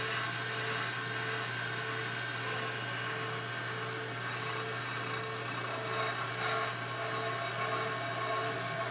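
On-car brake lathe running and spinning the brake rotor, its cutting tips just touching the rotor face: a steady motor hum with light scraping and a tone that pulses about every two-thirds of a second.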